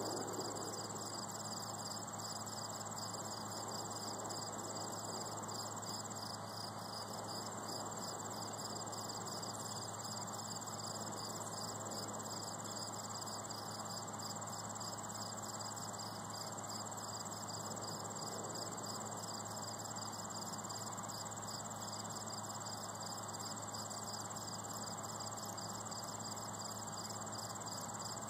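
Insects chirping steadily, crickets among them: a rapidly pulsing chirp and a higher continuous trill, unbroken throughout.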